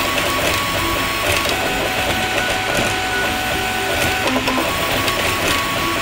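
Atomic U300 3D printer printing, its stepper motors whining in short steady tones that switch on and off as the print head changes moves, over a constant fan hiss and light ticking.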